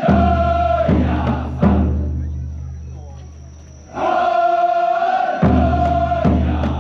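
Shachi-daiko float drumming: a long held chanted call from the performers' voices, answered by heavy strikes on the big taiko drum that die away slowly. The call ends just as three strikes fall about a second apart; about four seconds in, another held call rises, followed by two more strikes.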